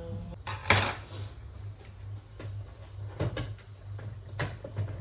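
A series of knocks and clicks from parts being handled, the loudest a sharp knock about a second in, over a low pulsing hum.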